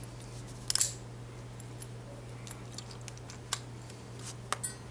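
Small metallic clicks and taps of padlock parts and key being handled, with a sharp cluster of clicks just under a second in and a few single clicks near the end, over a steady low hum.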